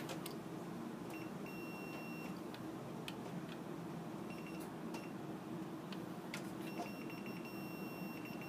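High, steady electronic beep of a continuity tester that switches on and off. It sounds for about a second starting a second in, blips briefly near the middle, then holds through the last couple of seconds. Each beep marks the turntable bridge's track wipers making contact, so the contact is intermittent. A few light handling clicks come through as well.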